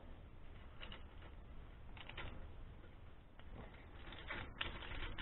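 Gloved hands handling a steel winch cable and its hook at an ATV winch's roller fairlead: scattered faint rustles and light clicks over a low steady hum, the busiest stretch a little past four seconds in.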